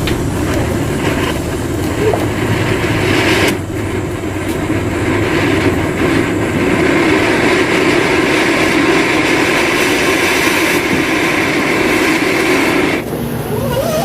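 A firework burning with a steady, even hissing rush for about thirteen seconds, dying away shortly before the end.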